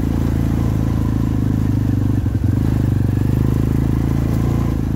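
A 250cc Jinling ATV's engine running steadily under way, with a brief dip in the engine note a little over two seconds in.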